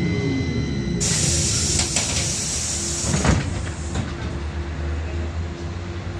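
Inside a VMZ-5298.01 trolleybus coming to a stop: the electric drive's high whine dies away about a second in, then compressed air hisses loudly for about three seconds, over a steady low hum of the vehicle.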